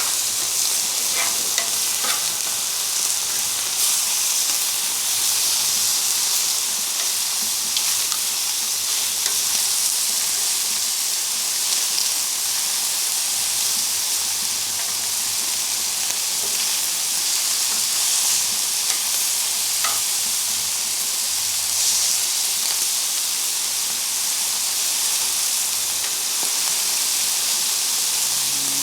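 Chicken thighs and waffle fries sizzling on a Blackstone flat-top griddle: a steady frying hiss, with a few faint clicks now and then.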